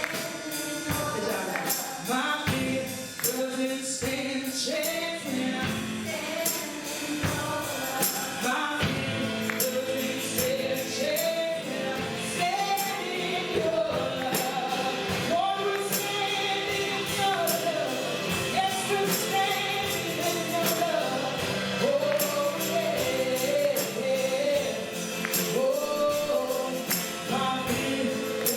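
Gospel worship song with a group of singers and a tambourine keeping a steady beat.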